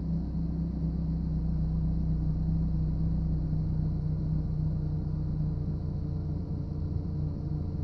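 BMW E36 318is's M44 1.9-litre four-cylinder engine idling roughly. Its steady low hum turns uneven about halfway through, the rough idle the owner is chasing.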